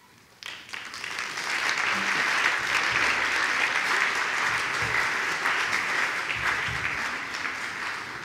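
Congregation applauding. The clapping swells up in the first second, holds steady, then tapers off near the end.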